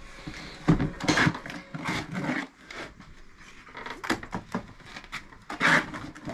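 Steel trowel scraping and spreading thin-bed mortar over the top of aerated concrete blocks and in the mortar bucket: irregular scrapes, the loudest about a second in and again near the end.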